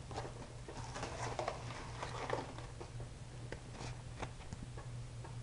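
Handling of an unboxed package: scattered soft rustles, light scrapes and small taps, busiest in the first half, over a steady low hum.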